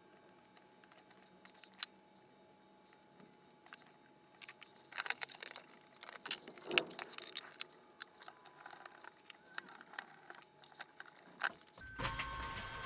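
Scattered small metallic clicks and clinks of tools and parts being handled on a workbench during reassembly of a stereo receiver. A faint steady high whine runs underneath. Near the end the background changes abruptly to a louder hiss.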